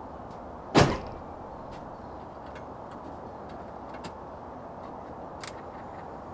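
A car door shutting with one loud thump about a second in, followed by a few faint ticks over a steady background hiss.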